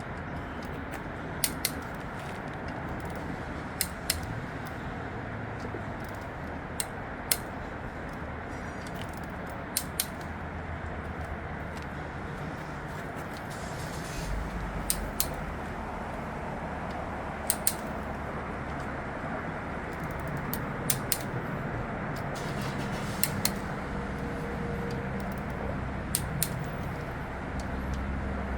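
Scattered sharp metallic clicks and clinks of engine parts and tools being handled during an engine teardown, every second or few, over steady background noise.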